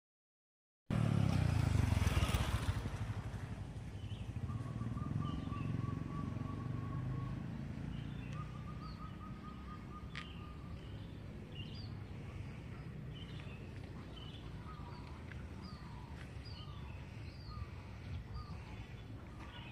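A motorcycle passing close by, loudest in the first few seconds, then fading into a steady low street hum. Short bird chirps repeat through the second half.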